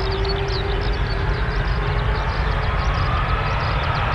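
Boeing 767-300's twin jet engines spooling up at the start of its takeoff roll: a loud, steady rush of engine noise over a deep rumble. A low hum fades out and a whine rises slowly in pitch from about halfway through.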